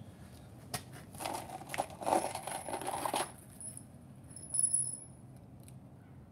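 Light clinking and rattling of loose wood screws and small tools being handled, with a few sharp clicks. A brief high whistle-like tone comes about four and a half seconds in.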